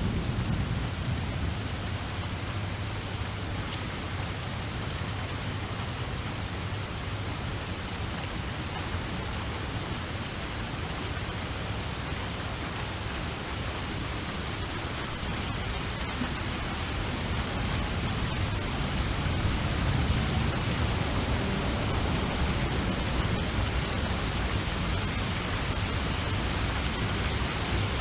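Steady rain, an even hiss with a low rumble beneath it that grows somewhat louder in the second half.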